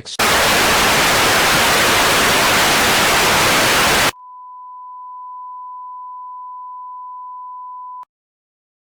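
Loud television static hiss for about four seconds, cutting straight to a steady single-pitch test tone that holds for about four seconds and stops abruptly into dead air. Together they are the sound of a broadcast signal lost in mid-message.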